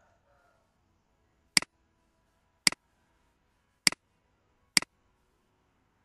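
Four sharp computer mouse clicks about a second apart, each followed at once by a fainter second tick.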